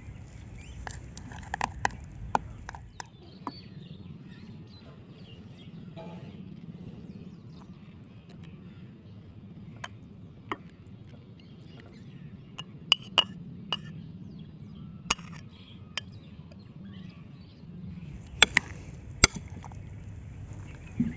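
Metal spoon clinking against ceramic bowls as chicken pieces are stirred into a spice marinade: scattered sharp clinks at irregular intervals, a few louder ones in the second half.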